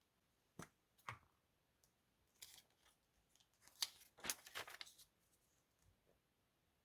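Scissors cutting paper: two sharp clicks about half a second apart, then a run of quick snips in the second half.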